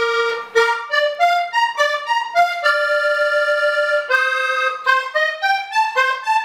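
Hohner three-row diatonic button accordion playing a quick vallenato melody on the treble buttons, with one longer held note in the middle of the phrase. The melody sounds alone, with no bass-side notes under it.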